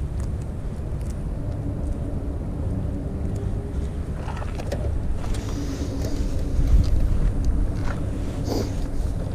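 Wind buffeting the microphone in a low, steady rumble, with a faint steady hum underneath and a few light clicks from hands handling the hook and bait.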